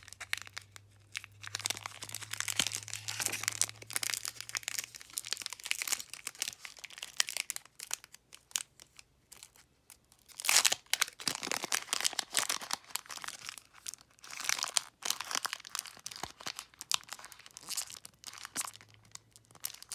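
Foil wrapper of a Pokémon booster pack being torn open and crinkled in irregular rustling bursts, the loudest about halfway through.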